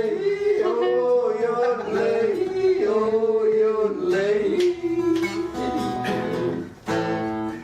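A song with a voice singing over acoustic guitar. The sound breaks off briefly near the end, then steady guitar chords resume.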